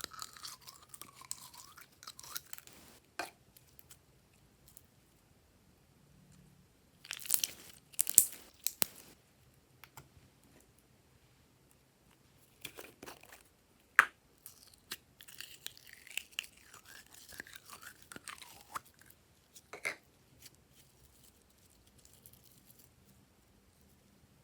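Glossy slime being worked by hand, giving sticky clicks and crackles in scattered bursts. The loudest cluster comes about a third of the way in, with a single sharp click a little after the middle.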